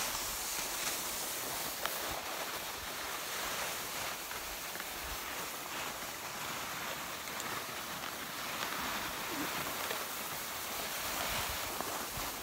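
Steady rushing hiss from skiing downhill: skis sliding over snow, with wind on the phone's microphone. One sharp click about two seconds in.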